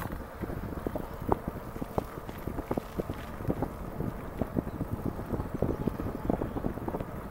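Wind buffeting the microphone of a moving e-bike, a steady low rumble broken by many irregular light clicks and rattles from the ride.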